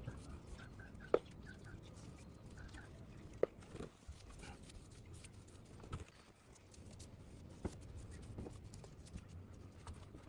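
A few light, sharp knocks or taps, spaced irregularly over a faint low background; the loudest come about a second in and about three and a half seconds in.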